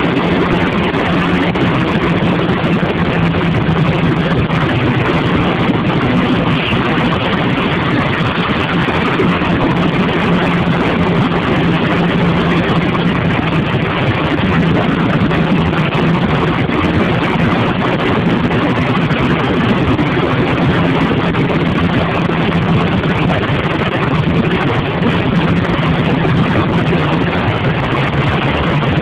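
Motorcycle engine running steadily as the bike cruises along a road, under a continuous rush of wind and road noise.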